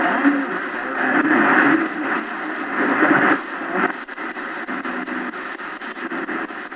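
XHDATA D-901 shortwave radio's speaker giving off static with a faint, garbled broadcast voice under the hiss. About three and a half seconds in this gives way to a rapid, regular ticking noise.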